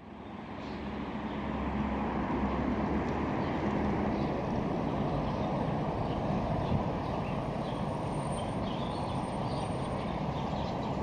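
City road traffic: a steady rumble of passing cars, fading in over the first second or two.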